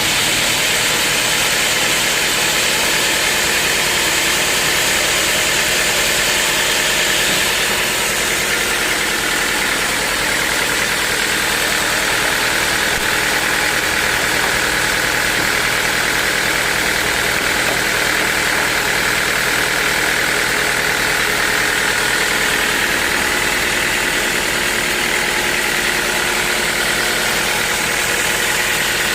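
Sawmill machinery running steadily: an engine-like drone under a high whine, which drops lower about eight seconds in.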